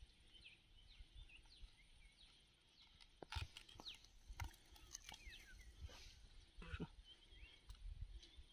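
Quiet outdoor ambience: small birds chirping faintly in short calls, with a few sharp clicks about three and a half, four and a half and seven seconds in.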